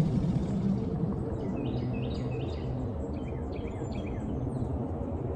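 A large American alligator calling out with a low, deep sound. Small birds make short falling chirps above it, several of them around the middle.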